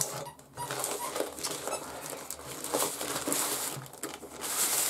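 Plastic parcel wrapping crinkling and rustling as it is handled and pulled open by hand, with small irregular clicks and crackles.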